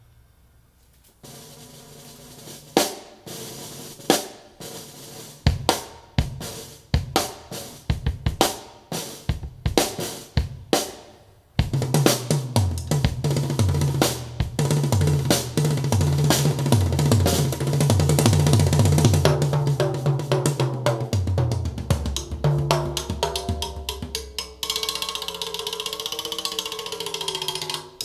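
Drum-heavy music played through a woofer driver whose rubber surround has been patched with layers of tissue paper. Separate drum hits for the first eleven seconds or so, then a steady, heavy bass line joins, with a wavering tone over it near the end. The owner judges that the repaired driver still has problems.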